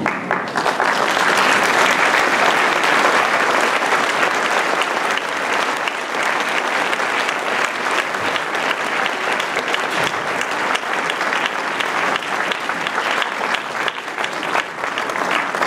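Audience applauding: dense, steady clapping that starts at once as the choir's song ends and eases slightly near the end.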